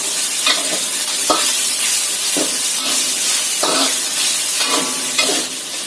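Chicken and aromatics sizzling in hot oil in a wok while being stir-fried, with a metal spatula scraping and knocking against the pan about once a second.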